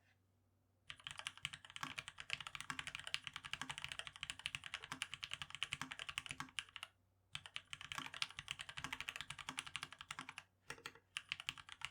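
Fast typing on a custom SQUARE X 60 mechanical keyboard with RGB Black linear switches: dense runs of key clacks, broken by two short pauses, the first near the middle and the second near the end.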